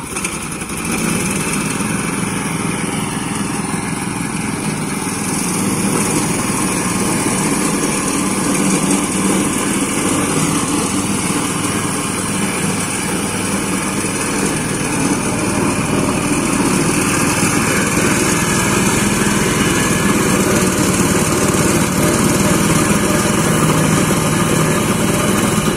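WOLF-Garten Expert Scooter Pro riding mower's 382cc engine running steadily under load as the machine drives along cutting grass.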